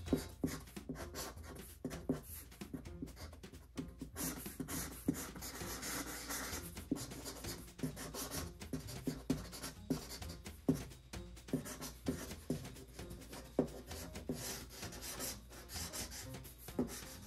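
Sharpie marker drawing on a cardboard box: a steady run of short felt-tip strokes scratching and rubbing across the cardboard.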